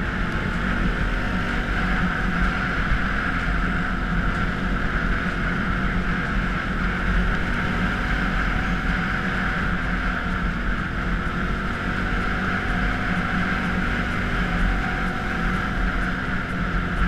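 Can-Am Outlander ATV engine running steadily under way, its pitch wavering slightly with the throttle, heard from a camera mounted on the handlebars.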